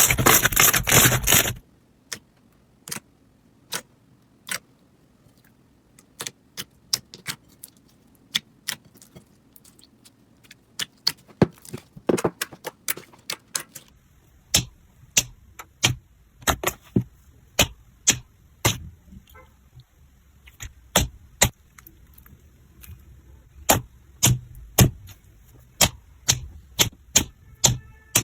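Slime being pressed and played with by hand, making sharp clicks and pops, a louder crunchy stretch in the first second and a half, then single pops that come more often from about halfway on.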